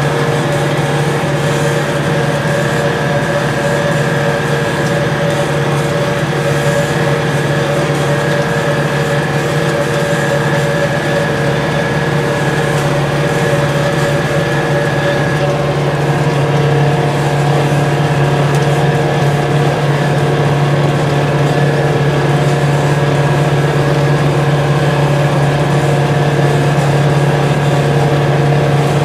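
TNF 95 vineyard tractor's diesel engine running steadily while driving a Martignani mist sprayer through a spraying pass, heard from the driver's seat. A steady whine sits over the engine drone, shifting slightly about halfway through, and the sound gets a little louder after that.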